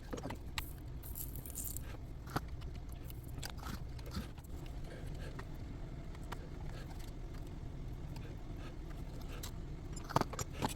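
A few light clicks and scrapes of wire and metal tools being handled during soldering, over a steady low hum.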